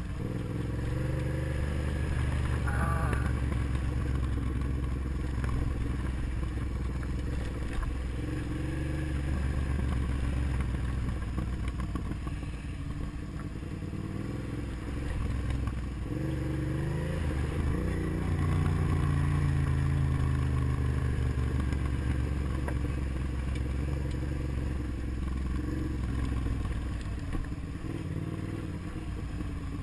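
Motorcycle engine running as the bike is ridden along a dirt road, its engine note easing off about twelve seconds in and rising again a few seconds later.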